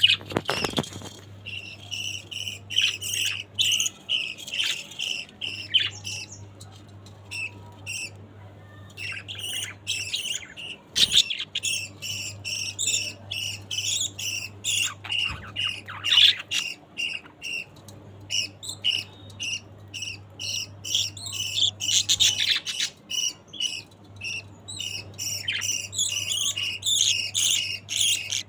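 Pet budgerigars chattering: a dense run of quick, high-pitched chirps and warbles with brief pauses.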